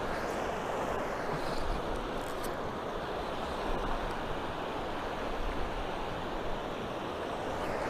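Fast mountain creek rushing over rocks and riffles, a steady, even rush of water.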